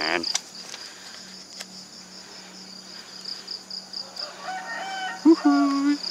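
Steady, high, pulsing insect chirping, with a short pitched animal call, crowing-like, about four and a half seconds in.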